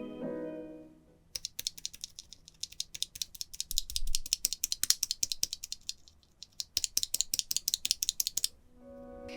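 Small plastic keyboard switches clicking and rattling against one another in quick, irregular succession, with a short pause about two-thirds of the way through.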